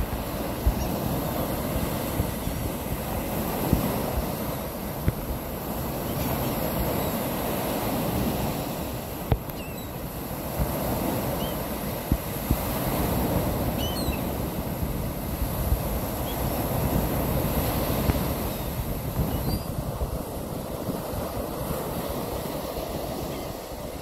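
Ocean surf breaking and washing up the beach, swelling and easing every few seconds, with wind buffeting the microphone in low rumbles and sharp thumps.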